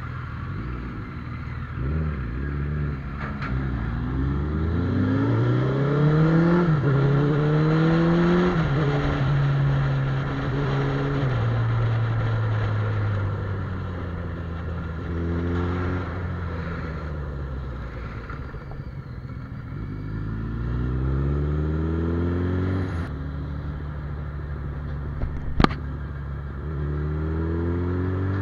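Suzuki Hayabusa's inline-four engine pulling hard through the gears, its pitch climbing under acceleration and dropping at each gear change several times, over wind rush. One sharp click late on.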